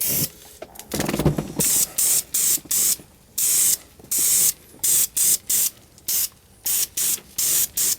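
Aerosol spray can of Duplicolor high-temperature engine enamel spraying in many short, quick bursts, about two a second, each a sharp hiss that starts and stops abruptly as the nozzle is pressed and released.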